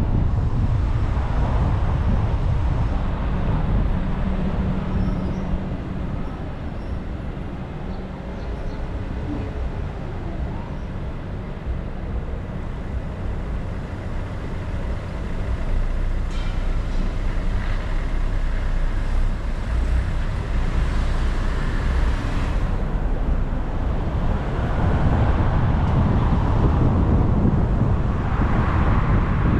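Steady highway road noise from moving traffic: a continuous rumble of tyres and engines that swells louder in the last few seconds.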